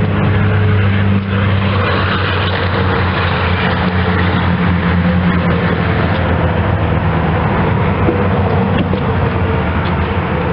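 The 2005 GMC Envoy's engine being cranked over by its starter, turning steadily without catching: the truck cranks but will not start.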